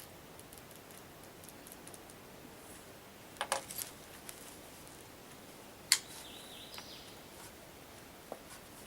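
A few small metallic clicks and clinks over a quiet background: a quick cluster about three and a half seconds in, and one sharper click just before six seconds.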